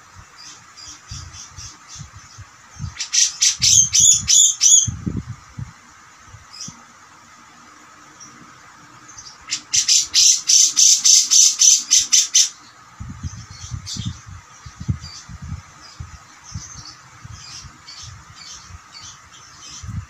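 Caged grey-cheeked bulbul (cucak jenggot) calling. It gives two loud bursts of rapid, harsh repeated notes at about five a second, one about three seconds in and one near the middle, with softer scattered chirps between them and after.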